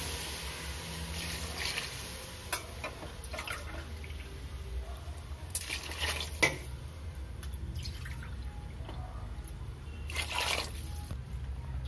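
Water poured in a few separate pours from a tumbler into a metal cooking pot of simmering vegetables, splashing and dripping. This is the cooking water for the rice being added. A steady low hum runs underneath.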